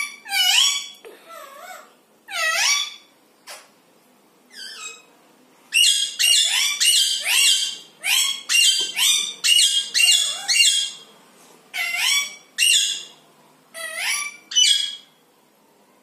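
Large green parakeets giving loud, harsh calls, each sweeping up in pitch. A few single calls come first, then a fast run of about two calls a second in the middle, then a few more spaced calls.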